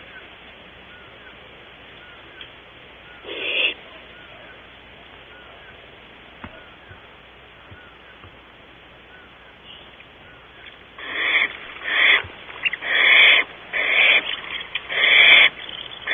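Young barn owls giving harsh hissing screeches: one short call about three seconds in, then a run of them roughly once a second over the last five seconds.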